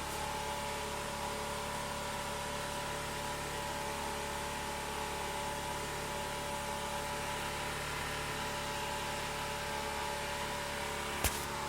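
NGF-110 milling machine running steadily on a frequency inverter: an even hum with a higher whine over it. A single sharp click near the end.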